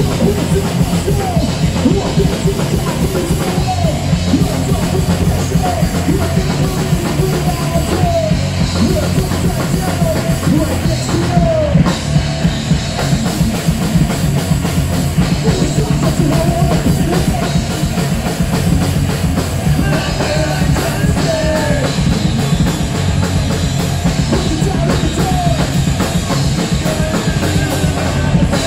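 Live rock band playing loudly: a Pearl drum kit driving a fast beat under distorted electric guitars.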